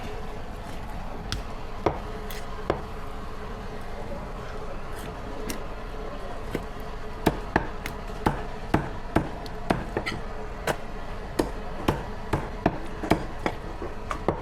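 Knife chopping through chicken on a cutting board: a few separate chops at first, then a steady run of about two chops a second from about halfway through, over a constant background hum.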